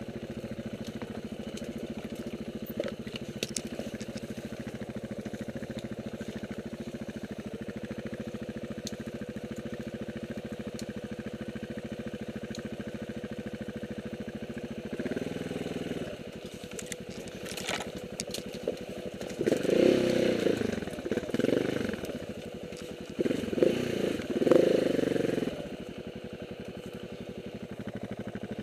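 Motorcycle engine idling steadily, a single-cylinder KTM 690 Enduro R, with several louder bursts of revving in the second half.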